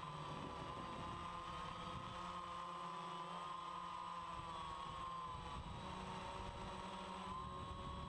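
DJI Phantom 1 quadcopter's brushless motors and propellers whirring steadily in flight, picked up by the GoPro mounted on the airframe. The whine wavers slightly in pitch as the drone holds and adjusts its flight.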